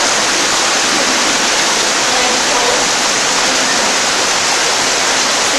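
Water rushing steadily, a loud, even hiss of flowing water.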